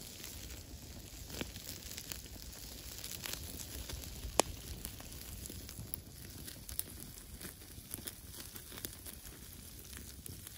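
Wood campfire crackling with scattered pops, the loudest a single sharp pop about four seconds in.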